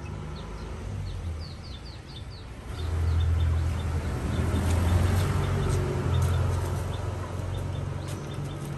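A low vehicle engine rumble that swells louder about three seconds in and keeps going, with small birds chirping faintly.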